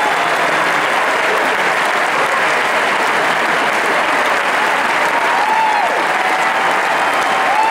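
Large crowd applauding steadily, a dense unbroken clapping.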